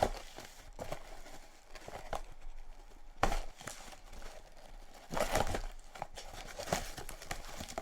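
A box of sweets being opened by hand: packaging crinkling and rustling, with irregular clicks and handling knocks. The loudest handling comes about three seconds in and again just after five seconds.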